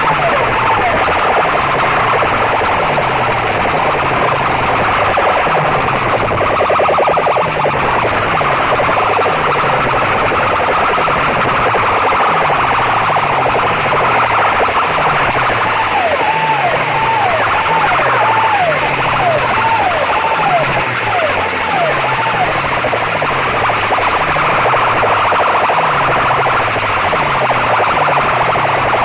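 Loud sound-system playback through stacked horn loudspeakers: a repeating stepped bass pattern under a dense, distorted mid-range, with siren-like falling swoops in a run about halfway through.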